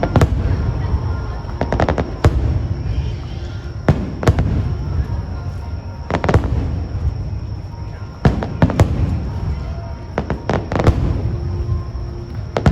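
Aerial fireworks shells bursting in an irregular series of sharp bangs, some in quick pairs and clusters, over a continuous low rumble of echoing booms.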